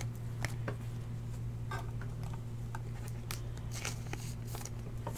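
Panini Prizm die-cut football cards being handled and flipped through in the hands: scattered faint clicks and slides of card stock, over a steady low hum.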